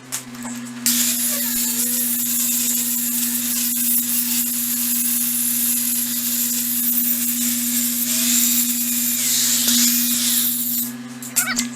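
Angle grinder grinding steel, starting about a second in and cutting off near the end, its pitch wavering slightly under load, over a steady low hum. A few metal clinks follow as it stops.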